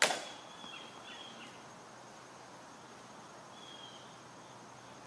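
A single sharp snap of a ceremonial rifle drill movement, dying away quickly, followed by a faint, steady, high insect drone with a couple of short high chirps.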